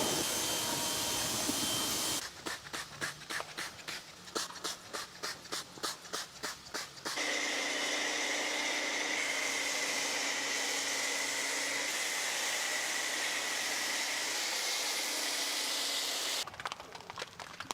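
Pressure washer spraying in long steady bursts of hiss. Between them come stretches of rhythmic strokes, about four a second.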